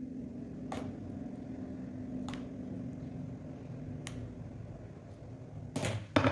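A steady low hum with a few light clicks, then two louder knocks near the end, like kitchen utensils or dishes being handled.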